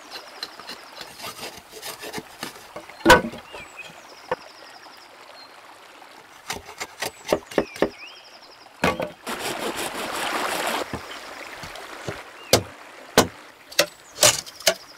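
Hatchet chopping and splitting green wood poles: scattered sharp knocks of the blade in the wood, the loudest about three seconds in and a quick run of them near the end. In the middle comes a rasping noise of about two seconds as the wood splits.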